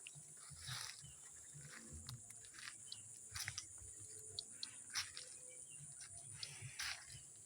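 Insects buzzing in a steady high drone, with scattered crunching and rustling noises through it.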